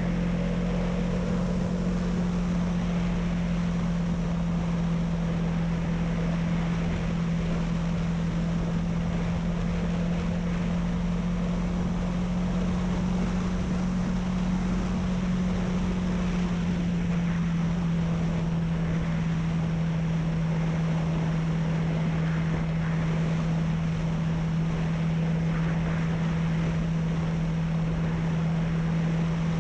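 Honda CB300F single-cylinder engine running steadily at cruising speed, its note dipping slightly a little past halfway, under a steady rush of wind on the microphone.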